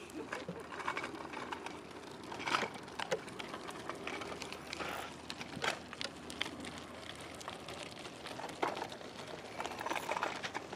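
A fishing reel being wound in while playing a hard-pulling fish, giving faint scattered clicks and handling rustle.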